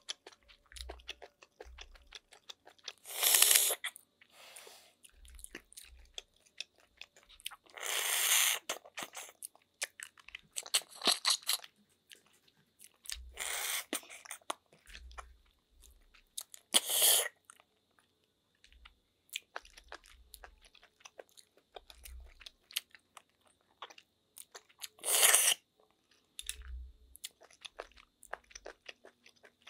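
Close-miked eating of snails in coconut sauce: the meat is sucked out of the shells in about five short, loud slurps, with wet chewing and small clicks in between.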